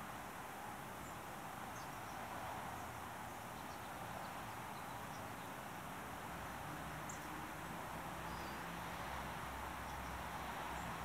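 A few faint, brief high bird chirps scattered over a steady, dull background hum, with a low drone joining about halfway through.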